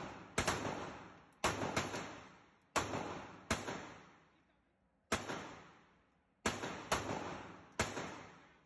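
Handgun firing at an indoor range: about eight single shots at uneven intervals, each echoing off the range walls as it fades.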